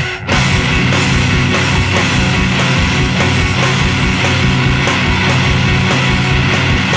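Math rock band playing a loud, dense passage of distorted electric guitar and drums, with steady rhythmic hits.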